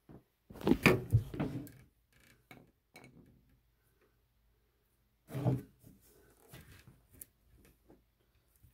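Knocks and clatter from handling a kitchen base cabinet and tools, loudest from about half a second to two seconds in. A second sharp knock comes about five and a half seconds in, with a few light taps and rubbing sounds between.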